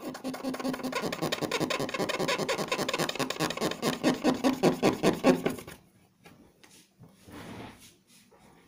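Cotton swab rubbed quickly back and forth, close to the microphone, wiping away superglue. The scrubbing strokes come several a second for about six seconds, then stop, leaving faint rustling.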